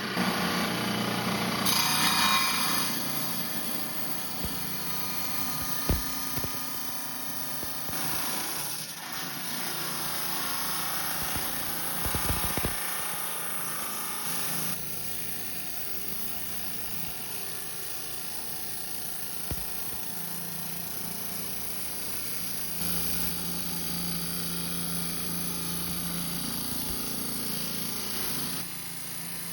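Rock saw with a diamond blade running and cutting through a stone, a steady grinding noise over the motor's hum.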